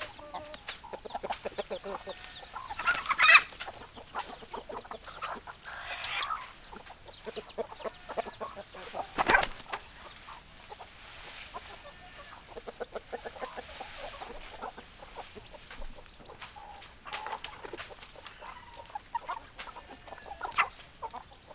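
Domestic chickens clucking: a run of short, repeated clucks from several hens, broken by a few louder squawks.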